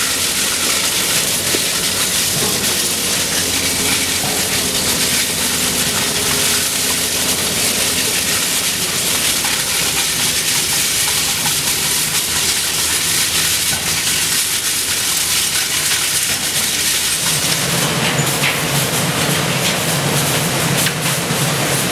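Shredded scrap steel pouring off the end of a stacking conveyor onto a pile: a steady rushing clatter over running machinery. About 17 seconds in it changes to shredded steel tumbling off a rotating drum onto a steel conveyor pan, a rattling clatter over a steady low machine hum.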